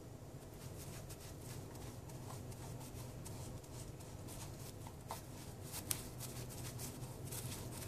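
Small stiff-bristled brush scratching and dabbing liquid hardener onto the inside of a satin pointe shoe's toe box, a quick run of short scratchy strokes, with one sharper click about six seconds in.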